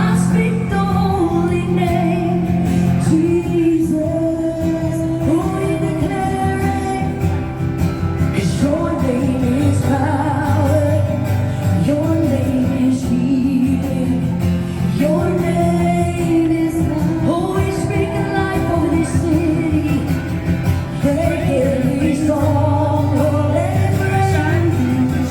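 A Christian worship song sung by a solo singer over instrumental accompaniment with a steady bass, the melody held in long notes and sliding between them.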